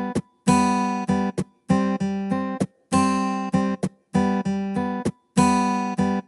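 Acoustic guitar music: a strummed chord pattern that repeats about every second and a quarter, each time a long strum followed by a few quick short chords, then a brief complete stop.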